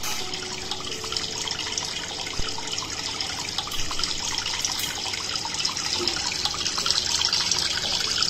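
Aquarium filter's water return trickling and splashing steadily into the tank.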